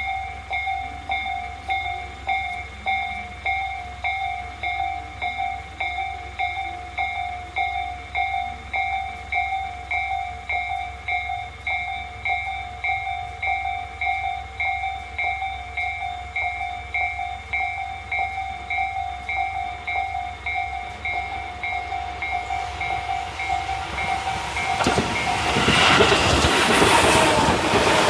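A Japanese level-crossing warning bell rings in a steady repeating electronic ding, about one and a half strikes a second, with the barriers down. About 24 seconds in, a train passes close by. Its rumble and wheel clatter grow loud and drown out the bell.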